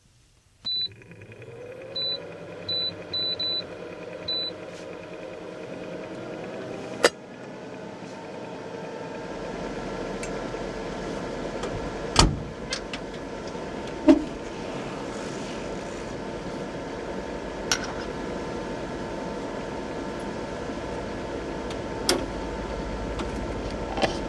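A vehicle's engine starting, its pitch rising as it catches and then settling to a steady idle that grows slowly louder. Six short high beeps sound in the first few seconds, and sharp clicks come now and then.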